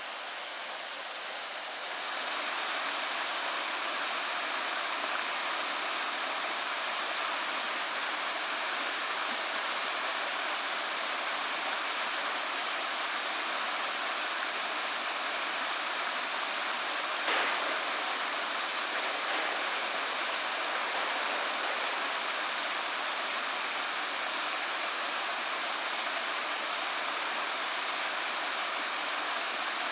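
Steady rushing water of a creek or waterfall, stepping up louder about two seconds in, with one brief click past the middle.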